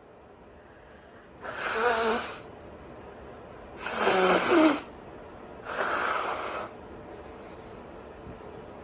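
A girl's three long, labored breaths, each about a second, roughly two seconds apart, with a wavering wheezy pitch in the first two: she is catching her breath after a bad coughing fit.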